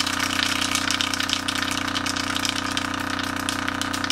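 Subwoofer speaker driven with a 31 Hz test tone, buzzing steadily with a dense stack of overtones. Grains of rice bouncing on the cone make a fast, fine rattle over the buzz.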